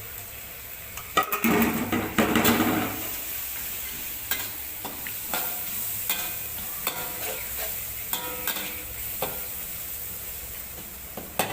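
Spices and meat sizzling in a frying pan while a spatula stirs and scrapes, with frequent small knocks of the utensil against the pan. The sizzling and stirring are loudest from about one to three seconds in.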